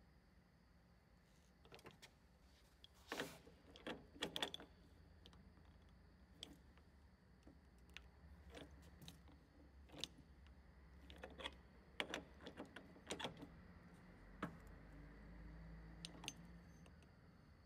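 Faint, scattered clicks and light metal taps from the hand adjustment of a Weinig Unimat 1000 moulder's spindles, over a low steady hum.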